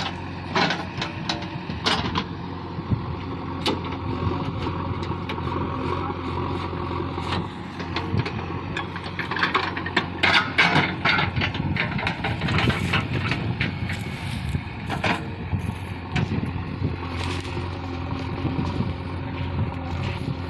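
JCB 3DX backhoe loader's diesel engine running steadily under work, with scattered sharp knocks and clanks from the machine, a cluster of them about halfway through.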